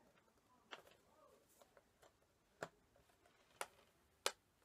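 Near silence broken by four faint, sharp clicks and taps, the last the loudest near the end: a packaged Steelbook case being handled.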